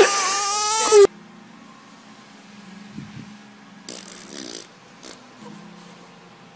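A baby crying, cut off abruptly after about a second. Then a faint steady hum, a soft low thump about three seconds in, and a short rasping, pulsing burst about a second later.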